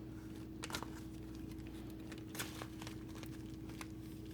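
Faint handling noises, a few soft clicks and rustles from the packaging and small object being turned in the hands, over a steady low hum.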